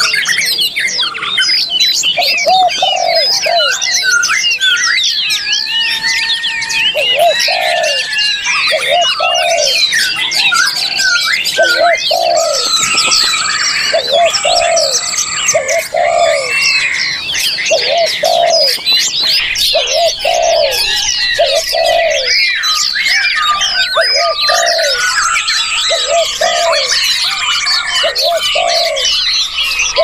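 Dense chorus of songbirds chirping and whistling, with a dove cooing over and over in low paired notes underneath.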